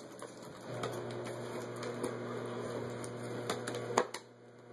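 Wrapping paper and tissue paper crinkling and tearing as a toddler handles a wrapped gift box. A steady hum comes in about a second in and stops with a sharp click near the end.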